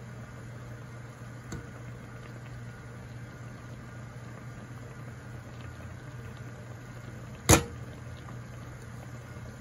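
Steady low hum over a pot of chhana balls boiling in sugar syrup on a gas stove, with a single sharp knock about seven and a half seconds in.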